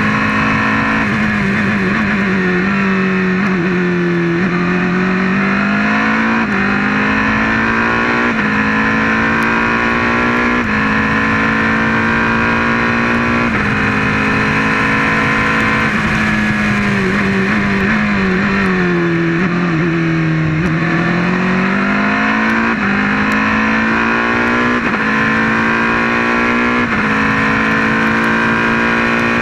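Onboard sound of an open-cockpit prototype race car's engine at racing speed, its note mostly held high and level with short breaks every couple of seconds. Twice the revs sag lower and climb back up.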